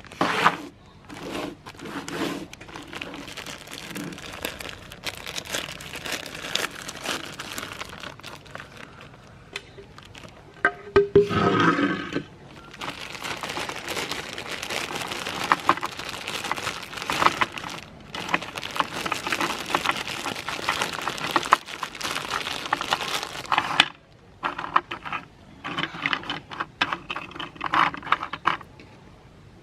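Meat grinder crushing and grinding objects: dense crackling and crunching with sharp snaps. It comes in spells, with a short pitched squeal about eleven seconds in and a brief lull near the end.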